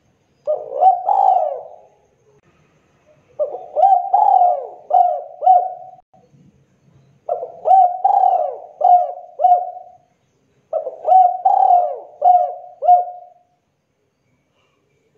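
Spotted dove (derkuku) singing: four cooing phrases, each of several short notes, with brief pauses between them.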